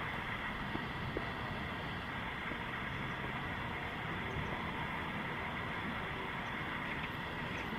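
Steady background noise, a constant low rumble and hiss with no distinct sounds standing out.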